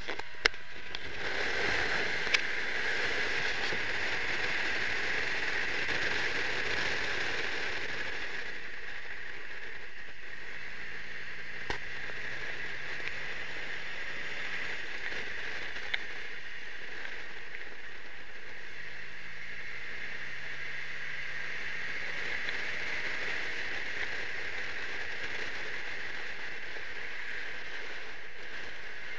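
Wind and road noise rushing over a camera mounted outside a moving 1962 Triumph Herald 1200, with the car's small four-cylinder engine faintly heard rising in pitch several times as it pulls away through the gears. A few sharp clicks, the loudest near the start.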